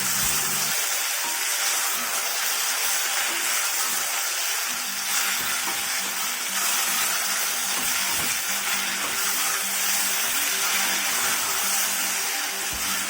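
Sliced okra and carrots sizzling steadily in hot oil in a pan as they are stir-fried.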